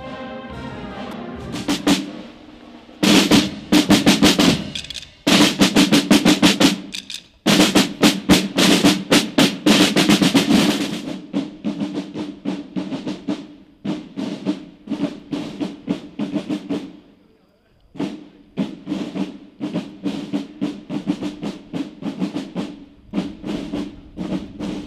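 Marching snare drums playing, with fast rolls and loud beating at first, then a steady marching cadence after a short break. Two brief pauses interrupt the drumming.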